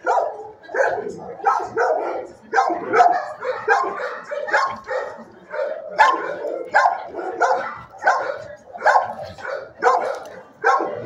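Shelter dogs barking over and over in their kennels, the barks coming one to two a second and overlapping.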